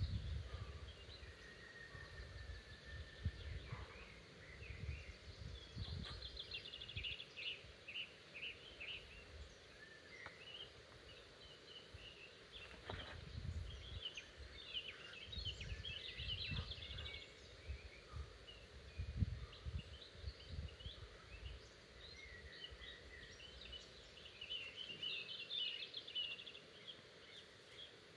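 Songbirds singing in woodland: many short chirps and several rapid high trills, overlapping. There are intermittent low rumbles underneath.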